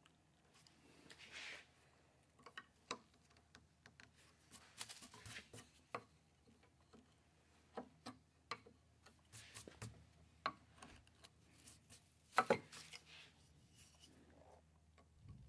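Wood chisel paring shavings from a dense osage orange gunstock: a faint string of short, sharp cuts and scrapes at irregular intervals, the loudest near the end.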